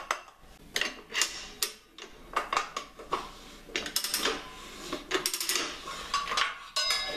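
Ratcheting mechanism of a Rabaconda motorcycle tire changer clicking and clanking as its handle is cranked, turning the wheel so the duck head works the tire bead off the rim. Sharp metal clicks come a few times a second at an uneven pace.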